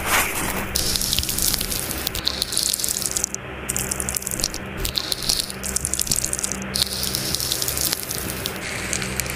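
Wet crackling and squishing of mandarin orange segments being picked apart and peeled with tweezers, a close, juicy, water-like crackle with many small clicks.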